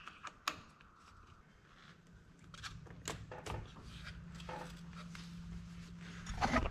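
Scattered light metallic clicks and clinks as a Beta dirt bike's countershaft sprocket and drive chain are worked back onto the splined output shaft, with a brief cluster of clicks near the end.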